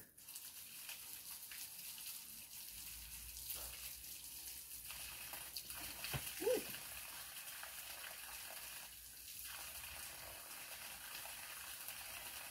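Water running steadily from an outdoor tap as hands are washed, heard as a continuous hiss. About halfway through, a brief squeak that rises and falls in pitch is the loudest sound.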